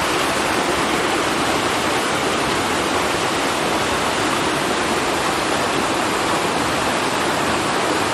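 Small waterfall pouring over rock into a pool: a steady, unbroken noise of falling and splashing water.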